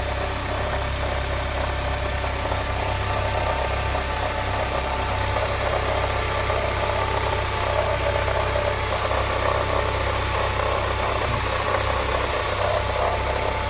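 Mercedes-Benz CLK 200 engine idling steadily after a cold start, with a steady whine over the idle that the owner calls a strange noise.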